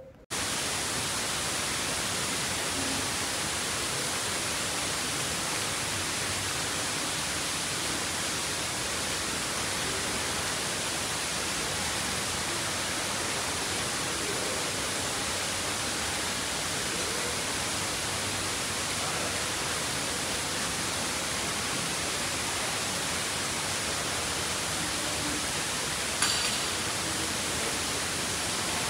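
Steady rush of water from a small garden waterfall splashing into a pond, an even hiss that does not change; a short click near the end.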